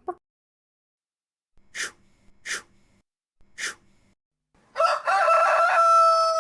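Three short, sharp noisy bursts, then a rooster crowing once: a loud, long, sustained call starting near the end.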